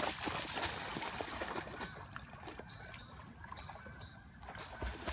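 Water splashing and sloshing in small irregular splashes as a Doberman wades into the water and swims.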